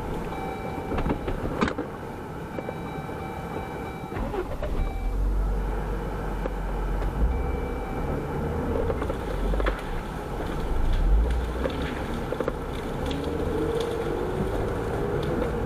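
Jeep engine running steadily with a low rumble, its revs rising briefly near the end.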